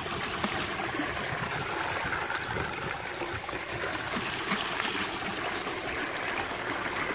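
Water pouring into the head of a small sluice box and rushing down over the riffle mat: a steady, even splashing rush.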